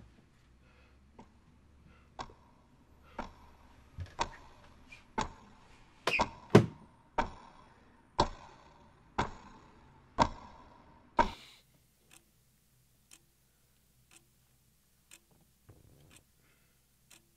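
Clock ticking about once a second, the ticks growing louder and echoing, with a doubled loudest tick about six seconds in. The loud ticking cuts off suddenly about eleven seconds in, and a much fainter tick carries on once a second.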